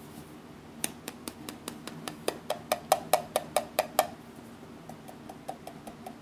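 An upturned sprinkles canister with a shaker top being tapped and shaken to get the sprinkles out: a quick run of sharp taps, about five a second, growing louder, then a softer run of taps near the end.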